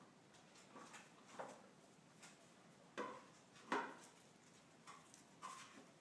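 Faint, scattered knocks and scrapes, about eight in a few seconds, from border collie puppies scrambling in and around a feed pan on a concrete floor. A few of the knocks ring briefly.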